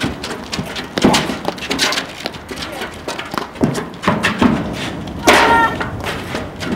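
Platform tennis doubles rally: the hollow knocks of paddles striking the ball and players' footfalls on the court deck, in quick irregular succession. A brief high-pitched sound cuts in about five seconds in.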